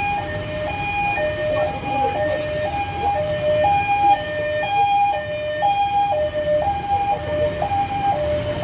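Two-tone hi-lo emergency-vehicle siren, alternating between a higher and a lower pitch about once a second, over a steady low rumble.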